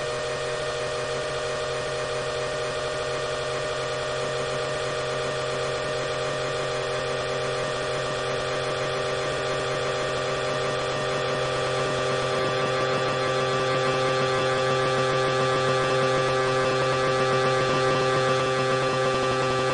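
Outdoor tornado warning siren sounding for a test, holding a steady tone made of several layered pitches, growing a little louder in the second half.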